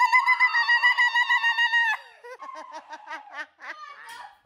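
A person's loud, high-pitched squeal held for about two seconds, then a run of short, choppy laughs.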